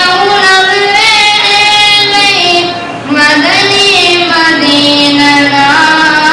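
A boy chanting a qasida, an Islamic devotional poem, solo into a microphone. His voice holds long, ornamented notes in two phrases, with a short breath break about three seconds in.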